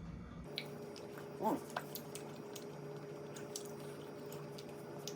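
Close-up chewing of a buffalo chicken wing: small wet clicks and smacks, with one short vocal 'mm' about a second and a half in, over a steady electrical hum.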